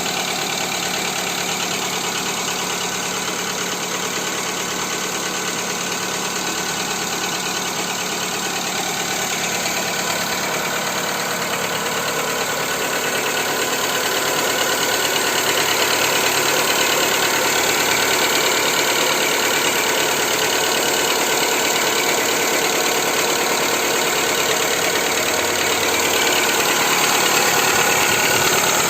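Skoda Fabia Mk2 1.4 engine running at idle with a knock ("стук"), heard after treatment with Liqui Moly Ceratec ceramic oil additive. It grows a little louder from about halfway.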